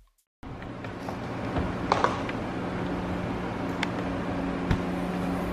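A few light clicks and knocks of hands fitting the front-end panels and trim of a BMW E46, over a steady low hum.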